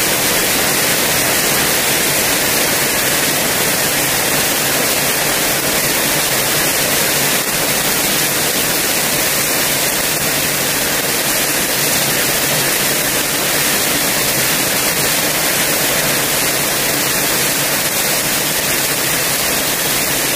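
Very heavy rain pouring down in a steady, loud, unbroken hiss.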